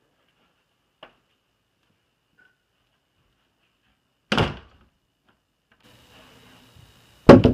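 Wooden bedroom door pushed shut with a single thump about four seconds in. Near the end comes a louder double knock on the door.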